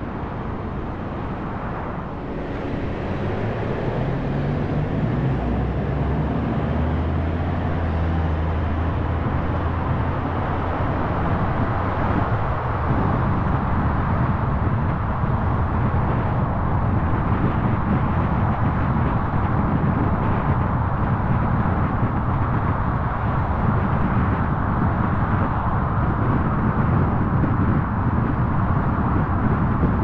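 A car pulls away from a stop, its engine note rising in steps over the first several seconds. Then there is steady tyre and road noise as it drives along.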